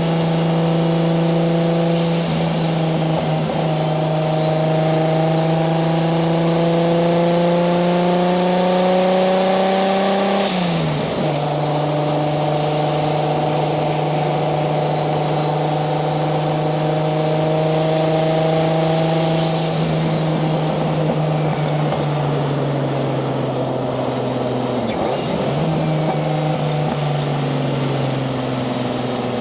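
Single-turbo Toyota 1JZ-GTE VVTi inline-six pulling steadily under light load, its pitch slowly rising with a climbing turbo whistle. About ten seconds in, the throttle lifts and the engine note and whistle drop together. It then pulls gently again and eases off twice more, coasting down in pitch near the end.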